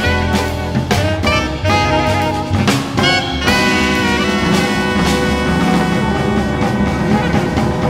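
Jazz quintet of alto and tenor saxophones, electric guitar, double bass and drum kit playing. The saxophones play short phrases punctuated by drum hits, then about halfway through hold a long chord over busy drumming.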